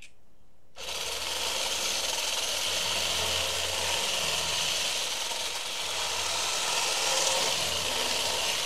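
Hamilton Beach immersion blender switching on about a second in and running steadily, its blade churning waffle batter in a stainless steel bowl.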